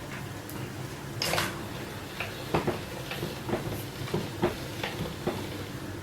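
Hand-cranked pasta machine rolling a sheet of dough: a short rasp about a second in, then the crank and roller gears clicking about three times a second as the handle turns.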